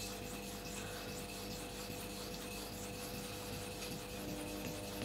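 Steel hair-clipper blade plate rubbed back and forth on a wet 1000-grit Naniwa Chosera water stone, a soft, steady scraping. It is the polishing pass that refines the edge left by the diamond plate.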